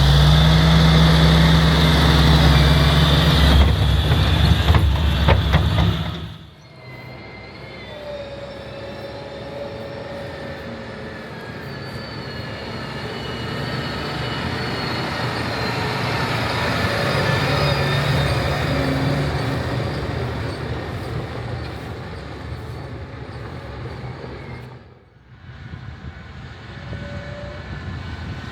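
John Deere 8270R tractor engines running. The engine is loud and close at first, then cuts off suddenly about six seconds in. After that a quieter engine swells and fades, with a short break near the end.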